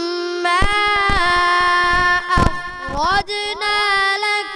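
A boy reciting the Quran in a melodic tilawat style into a handheld microphone, drawing out long ornamented notes, with the pitch climbing about three seconds in. A few brief low thumps sound under the voice in the first half.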